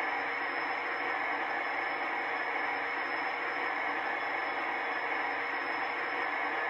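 Recorded diesel locomotive engine sound from a Zimo sound decoder, played through a small speaker in a 3D-printed enclosure inside an Aristocraft SD-45 model's shell: a steady engine rumble with a thin high whine over it.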